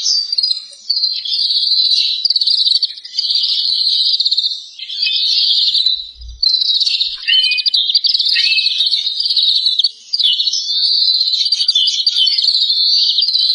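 A songbird singing long, high-pitched rapid trills that run almost without break, pausing briefly a few times.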